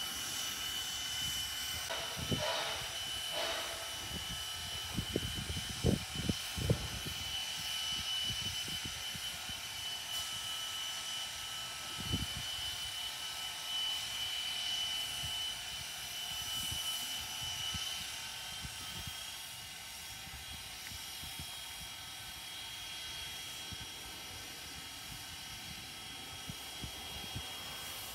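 Canadian National 89, a 2-6-0 steam locomotive, standing under steam: a steady high whine over a hiss. A few short low thumps come in the first several seconds and once more near the middle, and the whine eases a little about two-thirds of the way through.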